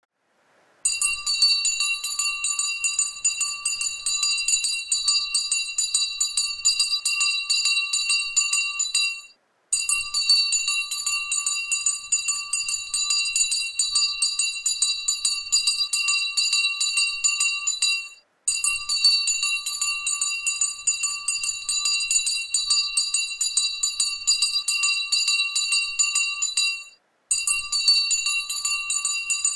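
Jingle bells shaken continuously in a rapid, even jingle, a sound loop of about nine seconds that stops briefly and starts over three times.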